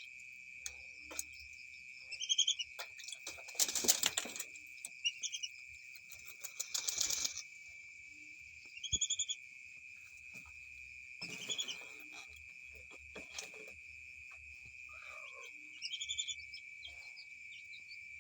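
Whistling ducks bathing: several bursts of splashing and wing-flapping in water, with short high whistled calls repeated every two to three seconds. A steady high insect drone runs underneath.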